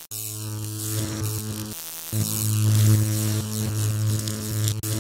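Electric buzz sound effect: a loud, steady mains-hum drone with crackling static over it. It cuts out for a moment about two seconds in, then comes back louder.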